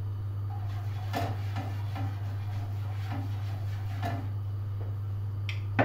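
Silicone pastry brush oiling a hot frying pan: faint brushing strokes and light taps about once a second. A sharper knock comes near the end, over a steady low hum.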